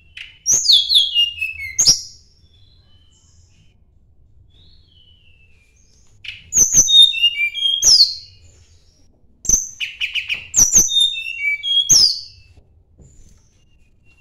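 A Sunda robin (tledekan gunung) singing its challenge song in three bursts, one near the start and two in the second half. Each burst is a quick run of sharp, high whistled notes that step down in pitch.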